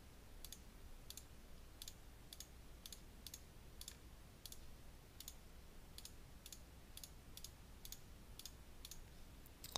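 Faint key clicks of an iPad's on-screen keyboard, one per key tap as a word is typed, about two a second.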